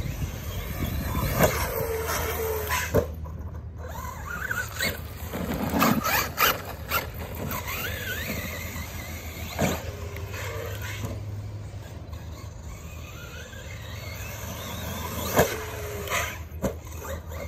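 Traxxas Maxx RC monster truck's brushless electric motor whining, rising and falling in pitch with the throttle as the truck drives over grass. Several sharp knocks come as it lands or tumbles; the loudest are about a second and a half in and near the end.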